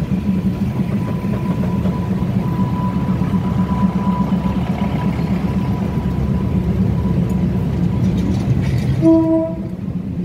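Diesel railcar rolling slowly past at close range: a steady low engine and wheel rumble. Near the end, a short melodic chime of a few tones begins over it, the start of a station announcement signal.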